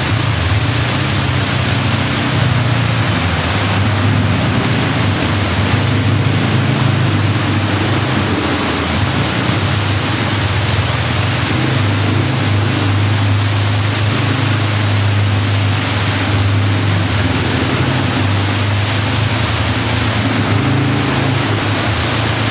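ATV engines running steadily as the quads ride through shallow water, tyres churning up spray; a steady engine hum under the constant rush of splashing water, inside a concrete tunnel.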